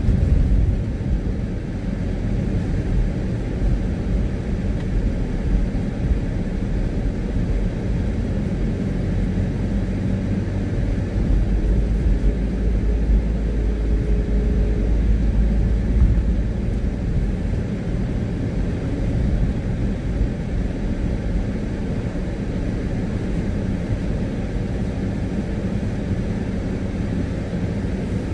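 Car driving on a wet road, heard from inside the cabin: a steady low rumble of engine and tyres, with a deeper hum for a few seconds in the middle.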